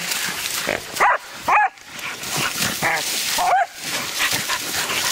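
Hunting dogs giving several short yelps and whines while holding a caught boar, over a steady rustle of scuffling in grass.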